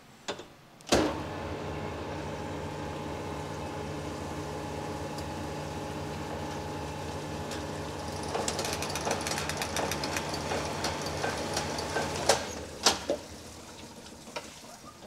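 Cylinder honing machine running a hone with 600-grit CBN stones in an engine block bore: a light finishing pass of a few strokes to set the cylinder wall's surface finish. A click about a second in starts a steady motor hum. A scratchy rattle joins it partway through. The machine stops about three seconds before the end, followed by two clunks.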